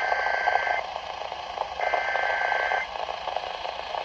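Emergency Alert System SAME header data bursts for a tornado warning: two buzzy digital tone bursts of about a second each, a second apart, over hissy radio noise.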